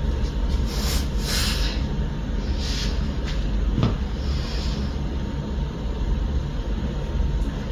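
A steady low rumble, like a running fan or blower, with brief rustles about a second in and near three seconds, and one sharp knock about four seconds in.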